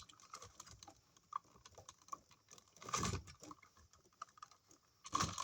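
Faint, scattered clicks and rustling of electrical wires being handled and pushed around inside a wall outlet box, with a louder flurry about three seconds in and again near the end.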